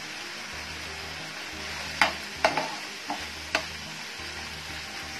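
Keema (minced meat) frying in a pan with a steady sizzle while being stirred with a spatula, cooked down until dry. Around the middle the spatula knocks sharply against the pan about five times in quick succession.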